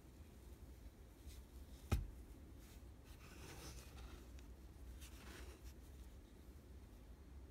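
Faint rustling and rubbing of cotton-gloved hands handling a wristwatch on a nylon NATO strap, over a low steady hum, with one sharp click about two seconds in.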